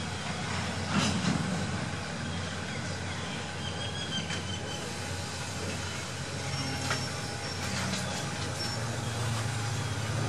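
SRT 4000-series GE diesel locomotive running steadily at low speed while shunting a train of tank wagons, with a few sharp clanks and faint high wheel squeals.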